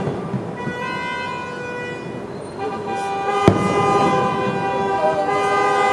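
A single sharp firework bang about three and a half seconds in, over long, steady horn blasts at several pitches at once.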